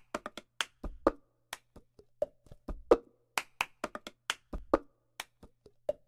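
Hand claps and plastic cups knocked and tapped on a tabletop in a quick, uneven rhythm: the 'cup game' percussion that opens a pop song. Some knocks ring briefly with a hollow tone.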